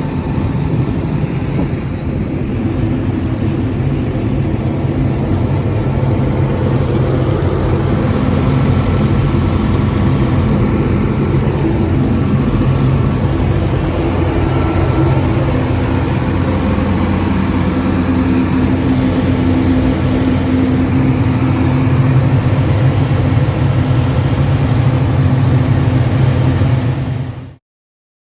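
Grain dryer running with a loud, steady mechanical drone and a low hum. The sound stops abruptly near the end.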